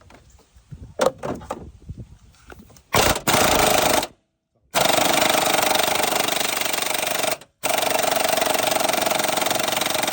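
3/8-inch Kobalt air impact wrench on a long extension hammering at an engine bracket mount bolt, after a few light clinks as it is fitted. It runs in long bursts with brief stops about four and seven and a half seconds in.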